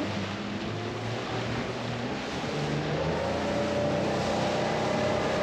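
Suzuki outboard motor driving the boat at speed, its pitch climbing a little about halfway through and then holding steady, over the rush of wind and water.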